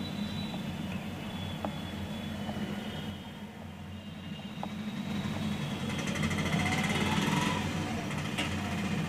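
Steady low engine hum in the background, with a motor vehicle going by about six seconds in, its engine note rising, which is the loudest part. A few faint clicks as the small metal parts of a wiper linkage are handled.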